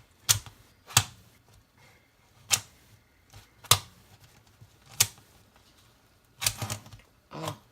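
Rubik's cube layers clacking as they are turned by foot: five single sharp clicks spaced a second or so apart, then two quick runs of several clicks near the end.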